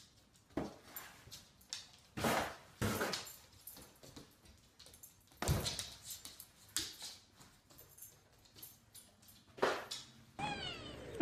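Cardboard box scraping and bumping along the floor and furniture as a dog walks blindly with its head stuck inside it: a series of short rustling scrapes, irregularly spaced.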